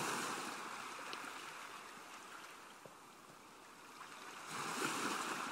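Faint wash of moving water, waves surging and foaming. It swells at the start, dies away to almost nothing in the middle, then surges again about four seconds in.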